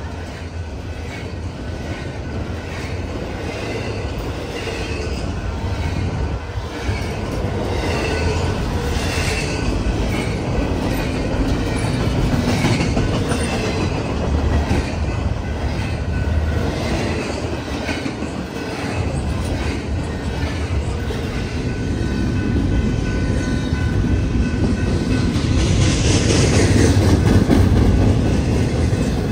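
Double-stack intermodal freight train rolling past close by: a steady rumble of well cars with repeated wheel clatter, growing louder, and a high-pitched wheel squeal near the end.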